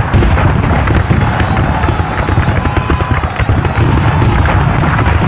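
Battle sound effects of massed gunfire: a dense, continuous crackle of shots and booms over a heavy low rumble.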